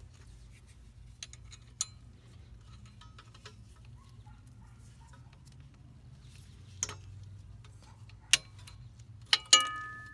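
Scattered metallic clicks and clinks of a hand tool working the parking-brake shoe springs and hardware in a rear drum-in-hat brake. The clicks grow louder in the second half, and a sharp metal clink near the end rings on for about a second.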